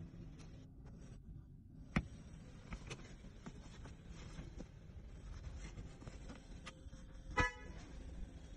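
Faint scattered taps and knocks of hands pressing and working a windshield glass and its rubber gasket into the frame, with one short high-pitched tone near the end.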